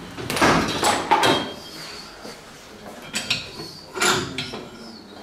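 Scraping and clattering of tools and metal engine parts being handled, in three bursts: a longer one starting about half a second in, then short ones about three and four seconds in.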